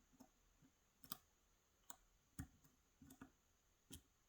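Faint, irregular clicks of a lock pick and tension wrench working the pins of a Yale 2000 Plus lock, about six light taps spread over a few seconds, as the pins are probed under increasing tension to find the binding one.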